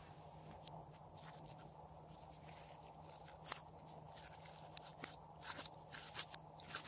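Glossy slime squeezed and kneaded by hand, giving faint sticky clicks and pops that come thicker in the second half, over a steady low hum.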